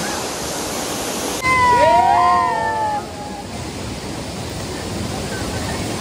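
Steady rushing roar of a waterfall's falling water. A person's voice calls out briefly about one and a half seconds in.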